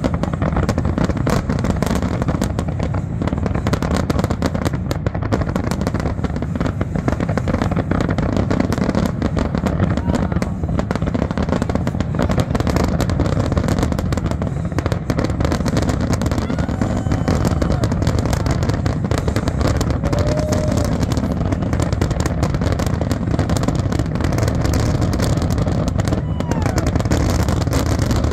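Aerial fireworks shells bursting in a dense, continuous barrage, the bangs and crackle running together with no gaps.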